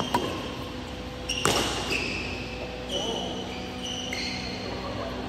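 Badminton rally: sharp racket strikes on the shuttlecock, the loudest about a second and a half in, with short squeaks of shoes on the court floor, ringing in a large hall.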